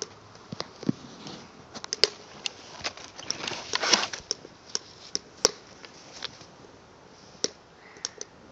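Freshly lit cedar log burning, the wood crackling with sharp, irregular pops, and a brief louder hissing rush about four seconds in.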